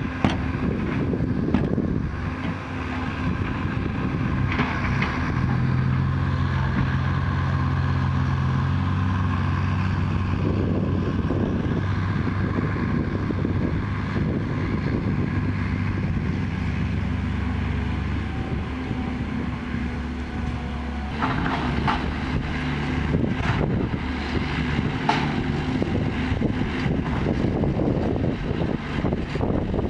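Six-wheel dump truck diesel engines running as a truck lowers its tipped bed and drives off across the field, with the engine note shifting a few times. A few short knocks come about two-thirds of the way in.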